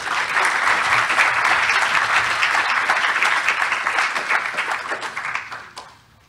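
Audience applause, a dense patter of many hands clapping that starts at once and fades out near the end.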